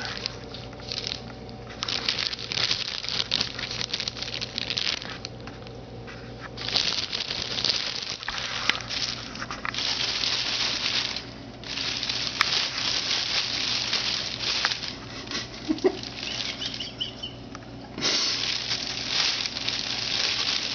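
Plastic bag crinkling and rustling as a cat shifts and pushes around inside it. The sound comes in bursts of a few seconds with brief lulls between.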